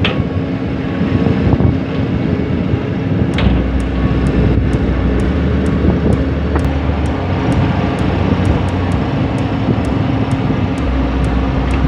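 Heavy diesel construction machinery running steadily, a continuous engine drone with a deeper low rumble coming in about three seconds in.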